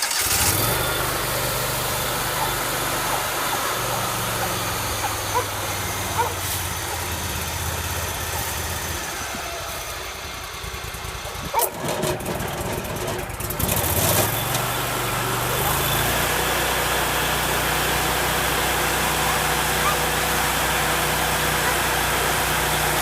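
Rayco 1625 Super Jr stump grinder's engine running at low speed, then, a little past halfway, throttled up to a steady higher speed.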